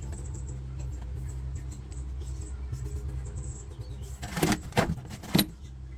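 A steady low machine hum, with three sharp knocks near the end, the last two about half a second apart.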